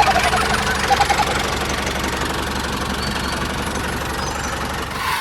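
Tractor engine running steadily with a constant low hum and a rough, knocking note.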